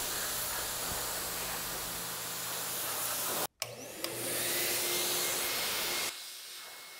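Steady running of a machine, then, after a short break about halfway, a Master Blaster Revolution car-drying blower whose motor whine rises and settles into a steady high tone over a rush of air. The sound drops to a softer level near the end.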